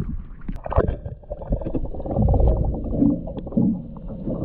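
Water sloshing and gurgling against a waterproof action camera held at the surface beside a small boat's hull and dipped underwater, a low rumble with many small splashes and knocks, loudest about halfway through.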